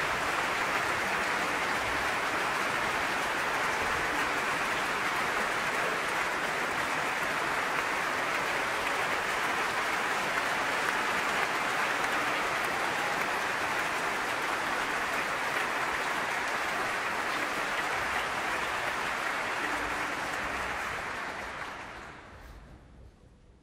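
Large concert-hall audience applauding steadily, welcoming the soloist onto the stage; the applause dies away near the end.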